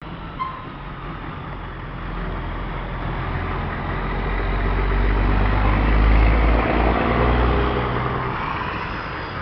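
Dump truck's engine idling steadily, growing louder toward the middle and easing off near the end.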